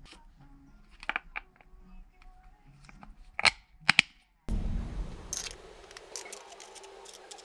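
Small metal parts clicking and knocking as a polished stainless screw and cap nut are handled against a plastic tire-changer mount/demount head, with two sharp knocks about three and a half and four seconds in. About halfway through, a steady hiss starts suddenly, with a few light ticks in it.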